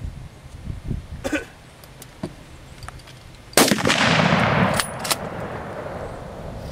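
Gunfire: one loud gunshot about three and a half seconds in, its report rolling away over about a second, followed closely by two sharp cracks. A fainter crack comes about a second in.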